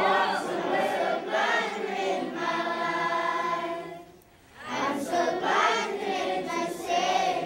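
A roomful of children singing a song together, with a brief break about four seconds in before the next line starts.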